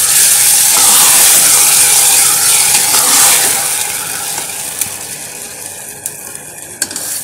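Water poured into hot mustard oil and browned onions in an aluminium pressure cooker: a loud hiss and sizzle that dies down after about four seconds, then a few sharp clicks of a steel spoon against the pot as it is stirred.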